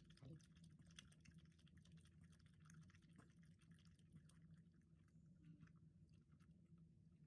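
Havanese dog lapping from a plastic bowl held to its mouth: faint, quick, irregular wet licking clicks.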